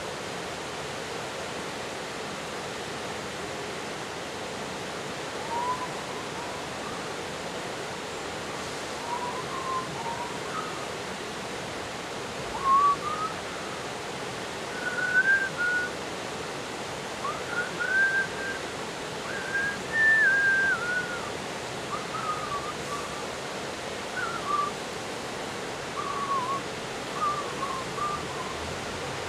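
Shallow river rushing steadily over rocks in rapids. From about five seconds in, short whistled notes that rise and fall come and go over the water noise.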